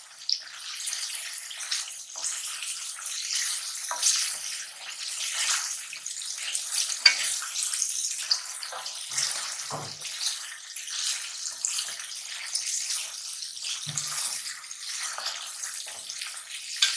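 Beef pieces sizzling in hot oil in a metal karahi as they are fried (bhuna), with a wooden spatula scraping and knocking against the pan while they are stirred.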